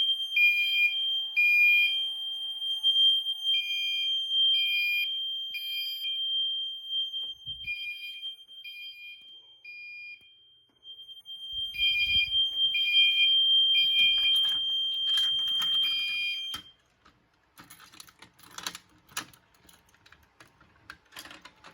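Fire alarm horns sounding together: a Gentex Commander 3 horn at about 2.4 kHz in the temporal code-3 pattern (three beeps, a pause, repeating) over a steady, continuous higher alarm tone. Both cut off suddenly about 16 seconds in, when the system is silenced, followed by clicking and rustling handling noise.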